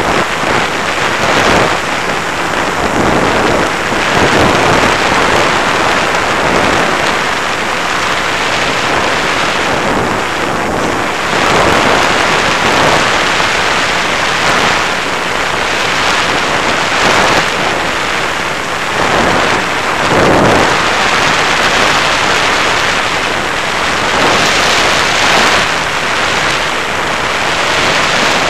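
Loud wind noise buffeting the onboard camera's microphone on a flying FPV Raptor model plane, a steady rush that swells and eases in surges every few seconds as the plane flies and banks.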